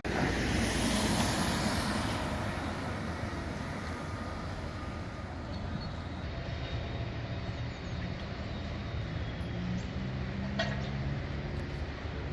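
A large vehicle running past close by: a steady rumble with a low engine hum, loudest in the first couple of seconds and easing off after.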